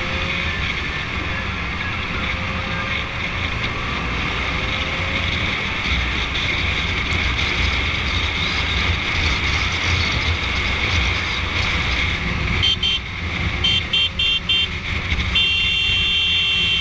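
Wind rush and engine noise of a motorcycle riding at road speed. About twelve and a half seconds in, a horn gives several short beeps, then sounds in one long blast of nearly three seconds.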